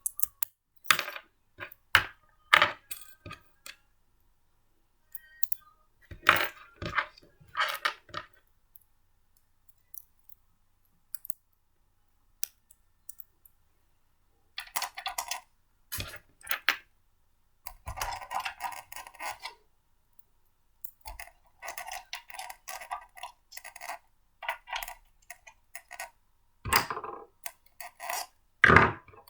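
Blender parts being handled and fitted together by hand: a run of sharp clicks, knocks and clinks of hard parts set down and joined, with short bursts of rattling as pieces are sorted and fitted.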